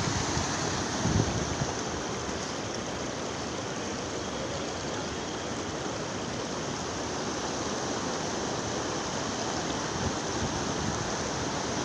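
Steady rushing of a monsoon-swollen stream of water flowing fast.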